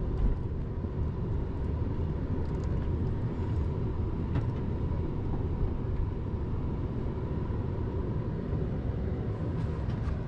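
Steady engine and tyre rumble inside a vehicle's cab driving along a dirt road.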